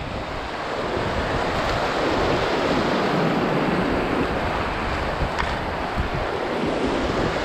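Rushing whitewater of a river rapid, a steady dense roar, with wind buffeting the microphone.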